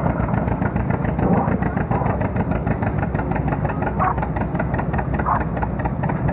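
Antique John Deere two-cylinder tractor engine under load, pulling a weight-transfer sled, running with a rapid, even popping beat.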